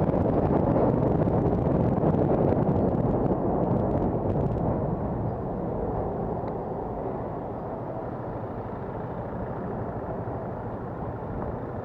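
Wind rushing over the microphone of a bicycle-mounted camera as the bike rides along, mixed with road traffic. It drops in level about five seconds in as the bike slows toward the stop line.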